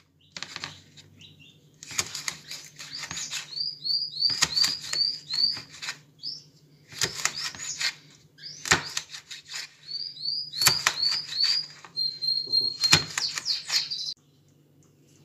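Kitchen knife chopping fresh green beans on a plastic cutting board, in bursts of quick cuts. A bird chirps through it, twice giving a run of short repeated notes.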